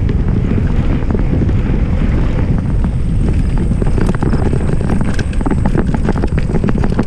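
Wind buffeting a GoPro Hero 5 Session's microphone on a moving mountain bike, a loud steady low rumble. Through it come many small clicks and rattles from the Polygon Siskiu D5 and its tyres on the gravelly dirt trail, thicker in the second half.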